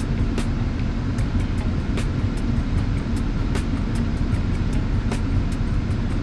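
Diesel engine of compact digging equipment running steadily under load, with frequent sharp clicks and knocks a few times a second from the machine and the material it is handling.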